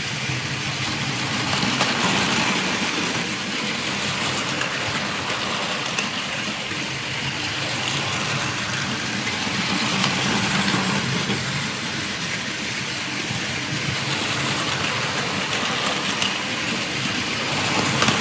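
Battery-powered Plarail toy trains running on plastic track: a steady motor whir and wheel hiss, with a few small clicks.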